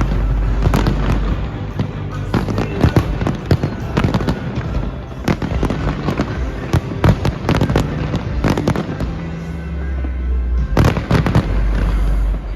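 A fireworks display with shells bursting in rapid succession: many sharp bangs and crackles, thickest about a second in and again near the end, over a continuous deep rumble.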